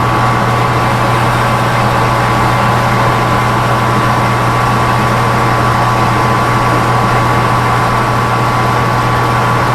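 Metal lathe running steadily while the tool takes a roughing cut across the face of bar stock under feed: a steady low hum with a thin high whine above it.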